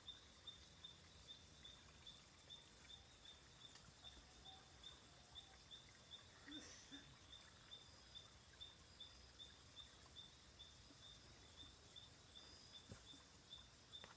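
Faint, evenly repeated short high chirps at one pitch, about two or three a second, from an unseen animal, over a low steady background hiss.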